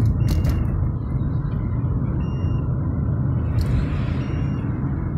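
Car cabin road noise while driving on a wet road in the rain: a steady low rumble of engine and tyres. A short high tone sounds twice, about two seconds apart, and a brief hiss comes just past the middle.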